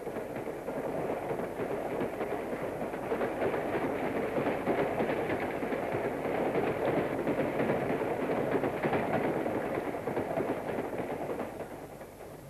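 Train on the move: a steady, dense crackling rattle with no clear rhythm, dying down near the end.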